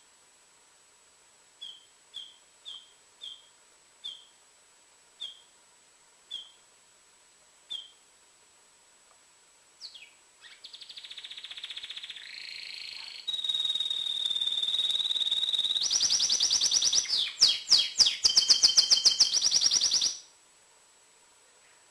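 Male canary in breeding condition, the kind kept singing to bring females into breeding condition. It gives short single call notes about once a second. About ten seconds in it breaks into a loud song of fast trills and rolls that lasts about ten seconds and stops abruptly.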